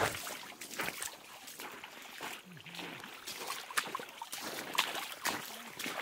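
Footsteps splashing through a shallow stream as someone wades across it, in uneven steps over the trickle of running water.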